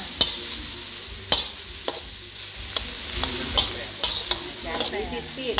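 Minced pork and chillies sizzling in a hot wok while a metal spatula stir-fries them. The spatula scrapes and knocks sharply against the pan every half second or so.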